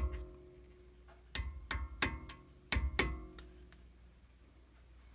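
Metal-on-metal taps on a Brembo brake caliper while knocking out its pad-retaining pins: about five sharp strikes in quick succession, each leaving a brief metallic ring.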